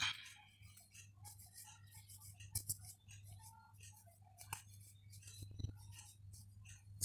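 Faint scattered ticks and clicks of a palm rolling a strip of rice-flour dough back and forth on a wooden board, over a low steady hum.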